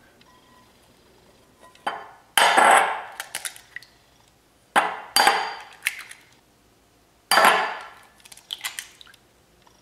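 Eggs cracked open over a bowl, three in turn, each a sharp crack followed by a few smaller crackles of shell.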